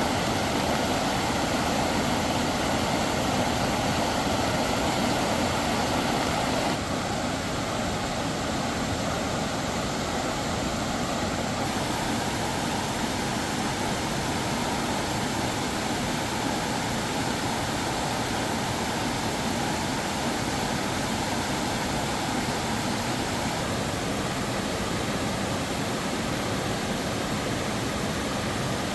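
Steady rushing of a rain-swollen mountain stream. The sound shifts slightly in tone about seven seconds in and again near twelve seconds.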